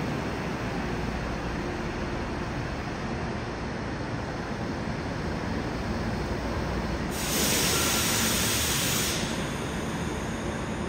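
Tokyo Metro Namboku Line subway train standing at the platform, its equipment running with a steady hum and rush. About seven seconds in, a louder burst of air hiss lasts about two seconds, then stops.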